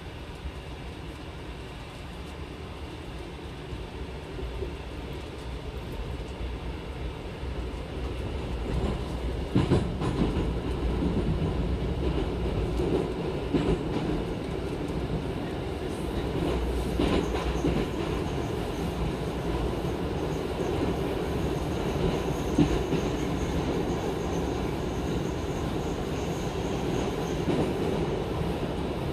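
Cabin noise inside a Moscow metro 81-765 "Moskva" train car as it pulls away and runs into the tunnel. The running noise rises over the first ten seconds or so and then holds steady. A few sharp wheel clacks come through, with a faint high whine in the second half.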